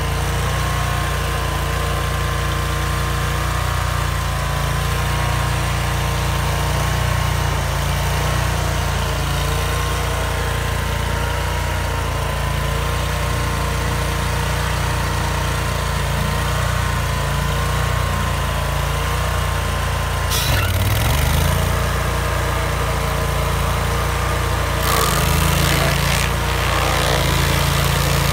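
Vermeer stump grinder's engine running steadily at working speed as the machine grinds a stump. Its pitch dips briefly about 21 seconds in, and louder rushing noise comes and goes near 25 seconds.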